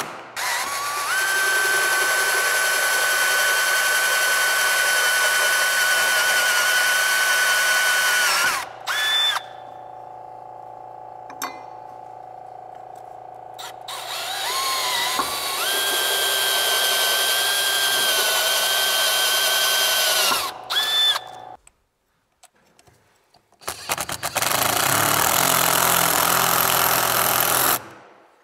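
Cordless drill boring into timber in three long runs. The first two carry a steady high whine from the motor. The third, near the end, is rougher and without the whine.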